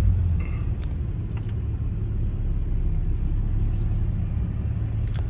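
Steady low rumble of a Dodge Ram 2500 pickup with a Cummins diesel engine driving in traffic, heard from inside the cab.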